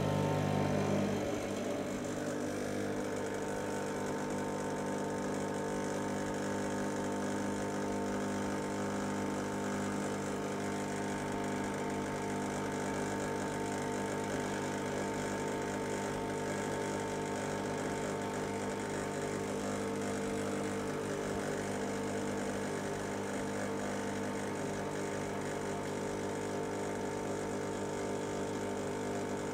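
Rancilio Silvia V6 espresso machine's vibratory pump buzzing steadily while pulling a double ristretto shot, a little louder for the first second or so before settling.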